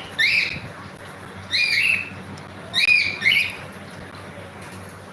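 Pet cockatiel giving four short chirping calls, each sliding up and then down, the last two close together.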